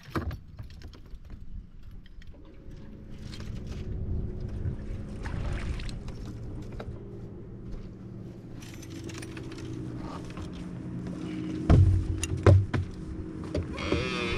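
Bass boat motor running with a steady low hum, with a few loud thumps about twelve seconds in.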